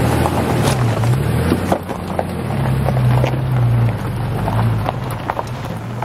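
Ford Ranger pickup driving slowly over a rocky trail. The engine runs with a low, steady hum, and the tyres crunch and click over loose rocks, with wind on the microphone.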